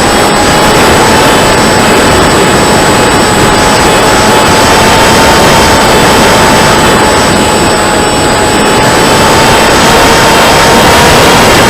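Brushless electric motor (2216, 2000 kV) driving a 7x5 APC propeller on an RC flying wing in flight, heard from onboard: a steady whine that drifts slightly in pitch, under heavy rushing wind on the microphone.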